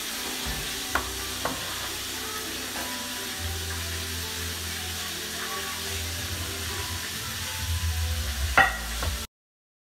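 Food sizzling as it fries in oil in a pan on the stove, a steady hiss with a few light knocks of pieces and utensils being handled; the sound cuts off suddenly near the end.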